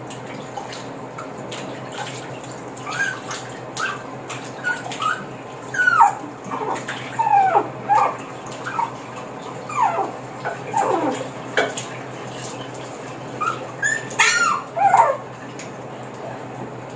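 Two-month-old Shih Tzu puppy whimpering and yelping during its bath: a string of short, high cries that each drop sharply in pitch, coming in irregular bunches, with a quiet stretch in the first few seconds and near the end.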